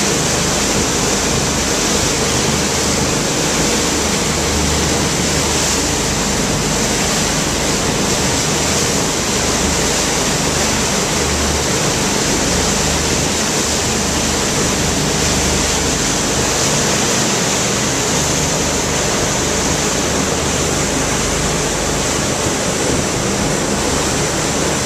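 Steady, loud rush of churning water and wind from a small boat moving at speed, its wake foaming behind it.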